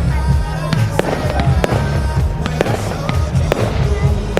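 Aerial fireworks going off in a quick, irregular run of sharp bangs and crackles, over music with a strong bass.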